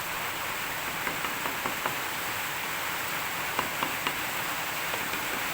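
Steady hiss of rain falling, with a few faint short ticks and drips scattered through it.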